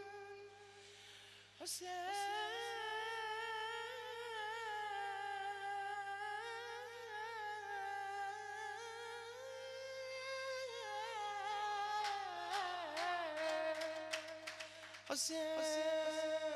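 A radood's wordless vocal melisma, one long wavering line that slides up and down in pitch, held almost without a break, with a few sharp clicks near the end.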